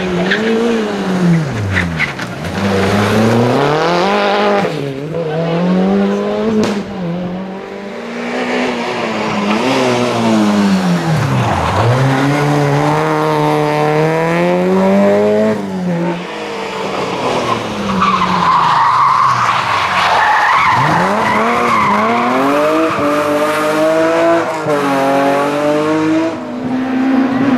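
Rally car engines revving hard at race pace on a tarmac stage, the pitch climbing and then dropping sharply again and again as the cars change gear and brake. There is a stretch of tyre squeal about two-thirds of the way in.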